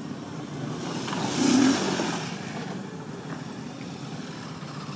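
Motorcycle engine running, with one louder rev about one and a half seconds in.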